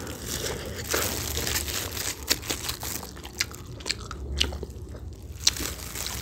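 Close-up eating sounds of momo dumplings and sauce-coated chicken wings being bitten and chewed: irregular sharp wet mouth clicks and smacks, with a louder burst about a second in.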